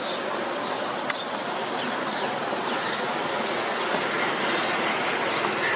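Steady background street noise, an even rushing with no clear pitch.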